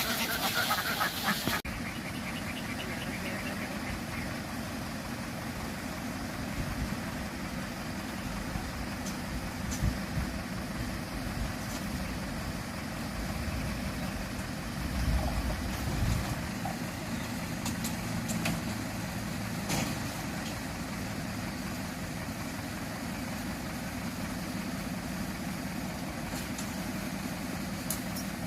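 Steady low hum of an engine running, with a few faint knocks and ticks.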